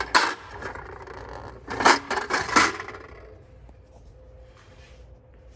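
Loose metal bolts and screws clinking and rattling as they are handled in a parts organizer: a couple of sharp clicks at first, a burst of clatter about two seconds in, then only faint ticks.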